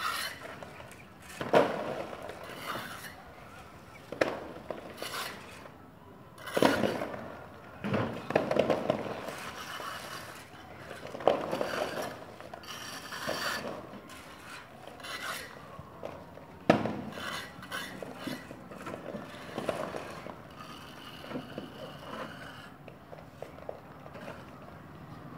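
Hand plastering tools scraping and rubbing over the cement plaster of a cornice molding, in irregular strokes, a few of them sharper and louder than the rest.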